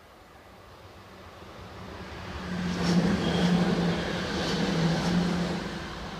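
An NS SGMm Sprinter electric train passing over a level crossing. The rush of wheels on rail builds up and is loudest for about three seconds, with a low steady hum and a few sharp clacks, then fades as the train moves off.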